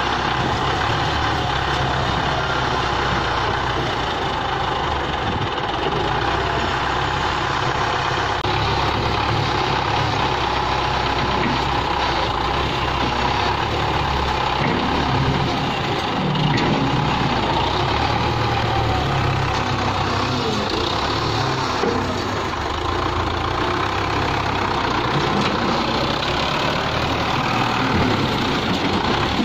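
Belarus 510 tractor's diesel engine running steadily as its front loader lifts and dumps a load.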